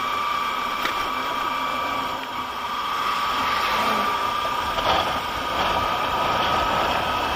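Motorcycle engine running at a steady cruise of about 35 km/h, with wind and road noise and a steady whine over it.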